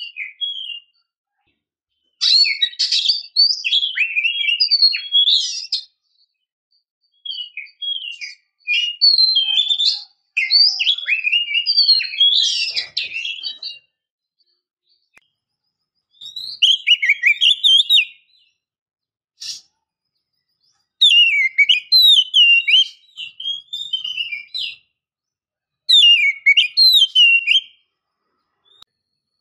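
Oriental magpie-robin (kacer) singing in loud bursts of rapid, sweeping whistles and chirps, with short pauses between phrases. A single sharp click comes about two-thirds of the way through.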